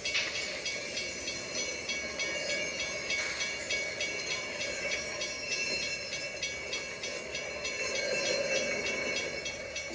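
Steam locomotive running at speed: a steady rush of train noise that swells slightly near the end.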